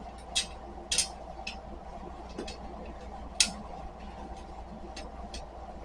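Light clicks and clinks of small metal hardware and tools being handled during flat-pack furniture assembly, about seven scattered ones, with one louder clink a little past the middle.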